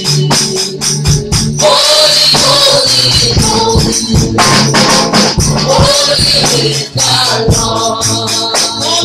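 Live gospel praise music: several women's voices singing together over a band backing with a steady shaken-percussion beat.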